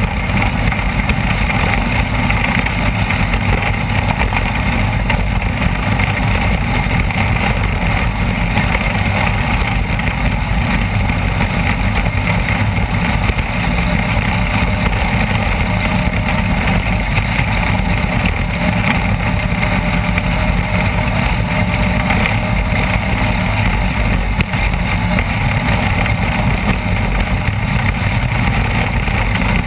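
Off-road race vehicle's engine running steadily under way: a constant loud drone with no clear rises or drops in revs.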